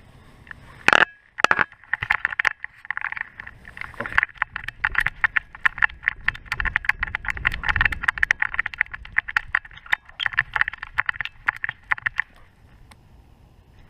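A GoPro camera strapped in a loose dog-harness mount, rattling and clattering in fast, irregular clicks as the dog moves, with a hard knock about a second in; the clatter dies down near the end.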